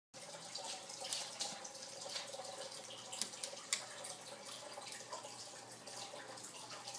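Scattered light clicks and taps of a cat's paws and claws on a laminate floor while it plays, over a steady faint hiss and hum.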